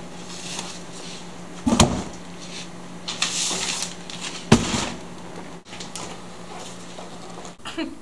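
Textbooks being dropped into a recycling bin: two heavy thuds about three seconds apart, with a rustle between them.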